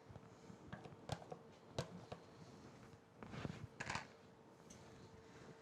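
Faint kitchen handling sounds: a couple of light clicks, then a short rustling scrape as sliced mushrooms are tipped and pushed into a full pan of sausage and tomatoes. A faint steady hum runs underneath.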